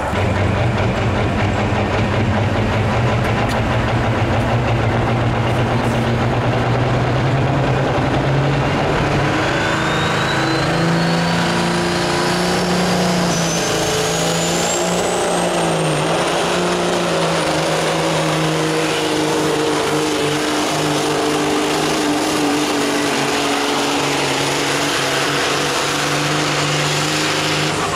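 Pro stock semi truck's diesel engine running flat out under heavy load as it drags a weight-transfer sled, a steady deep drone. Partway through, a high whine rises for several seconds and then holds.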